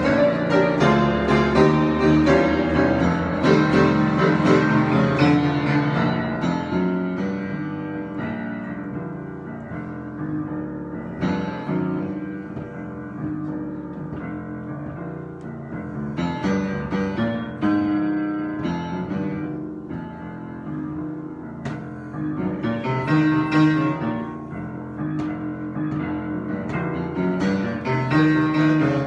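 Solo piano improvisation with dense chords. It plays fuller and louder for the first few seconds, thins to a softer passage through the middle, and swells again about three-quarters of the way through.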